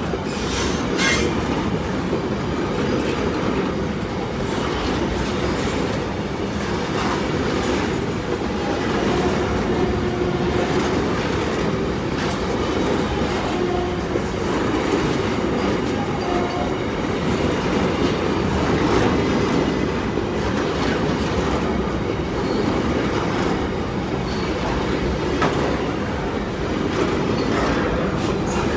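Goods train hauled by two WAG-9HC electric locomotives rolling along, its wheels making a steady rumble on the rails. A few brief, faint wheel squeals come through along the way.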